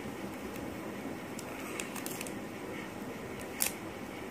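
Stiff white paper being handled and pressed into a ring, with light crinkles and small clicks and one sharp click about three and a half seconds in, over a steady hiss.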